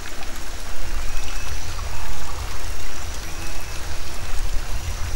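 Water ambience with a rain-like hiss over a steady deep low rumble.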